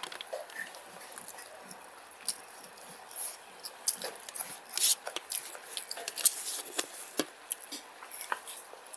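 Eating by hand, close to the microphone: fingers squishing and mixing rice and paneer curry on a plate, and wet chewing and mouth smacks, heard as many short irregular clicks.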